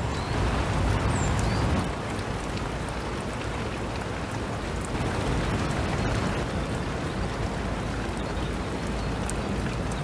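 Steady rain falling, heard as an even hiss over a low rumble.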